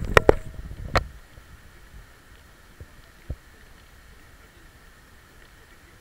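Three sharp knocks in the first second, with a smaller one a little after three seconds, over a faint, steady background hum.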